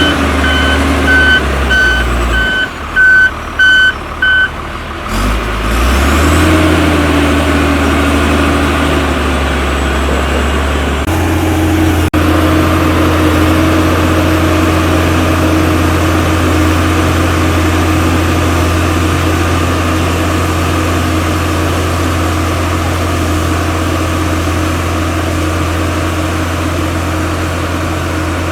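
A heavy earthmoving machine's engine running, with its reversing alarm beeping about twice a second for the first four seconds or so. The beeping then stops, the engine picks up briefly, and it carries on with a steady low drone.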